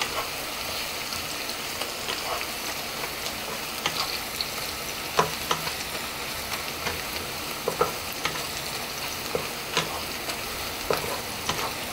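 Sliced onions sizzling in hot oil in a frying pan, stirred with a wooden spatula that scrapes and knocks against the pan now and then. The onions are softening and just beginning to change colour.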